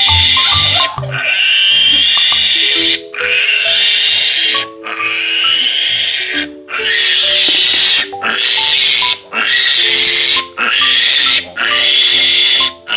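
Three-day-old piglet squealing in distress while held for processing: a string of loud squeals, each a second or so long, with short breaks between them. Background music plays underneath.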